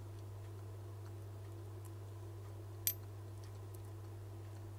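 A penny set down on the iPhone 7 logic board: one sharp metallic click about three seconds in, over a steady low electrical hum.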